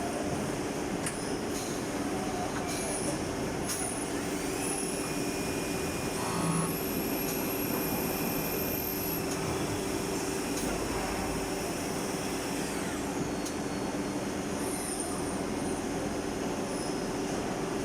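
Gildemeister MSL 42 CNC lathe running with a steady machine hum. A higher whine comes in about six seconds in and drops away near thirteen seconds.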